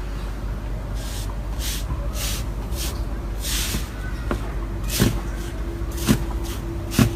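Slime being squeezed and worked by hand, with soft squelches about every half second, then three louder pops about a second apart near the end, over a steady low hum.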